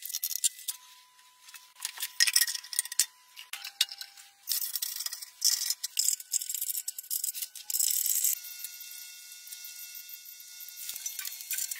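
Irregular clicks, taps and rattles of small metal parts being handled and fitted by hand on a steel frame, with light mallet taps and cable and chain handling.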